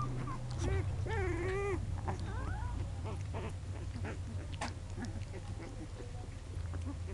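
American pit bull terrier puppies whimpering and squeaking, with one longer wavering whine about a second in and shorter squeaks after it, over small rustles and a low steady hum.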